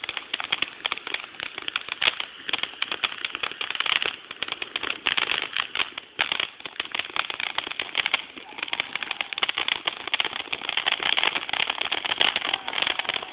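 Fireworks crackling in a dense, continuous run of rapid small pops, many each second, throughout the grand finale.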